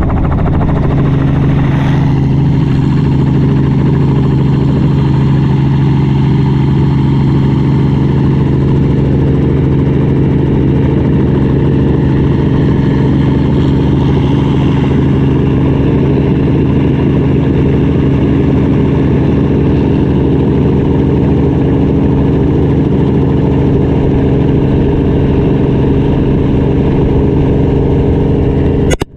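Helicopter engine and rotor droning steadily overhead, as heard from a payload slung on a line beneath it, with a deep steady hum. The sound cuts off abruptly near the end.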